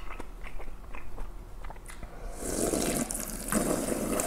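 A person slurping leftover cold naengmyeon broth straight from a stainless steel bowl. There are a few light clicks as the bowl is lifted, then two long, loud slurps from about halfway in.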